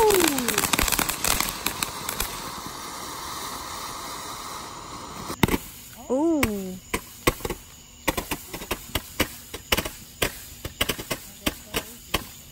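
Consumer fireworks: a ground fountain hissing and crackling for the first couple of seconds, then a string of sharp, separate pops and cracks, a few a second, from about seven seconds in.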